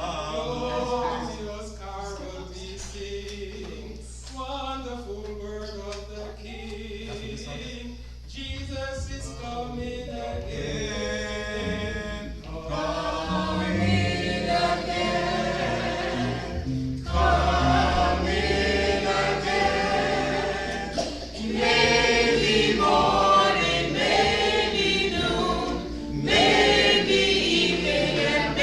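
A choir singing a gospel hymn. It starts soft and grows fuller and louder from about halfway through.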